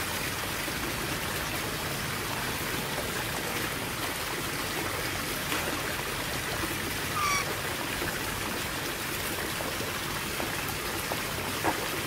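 Steady rush of running water, with a single short bird chirp about seven seconds in.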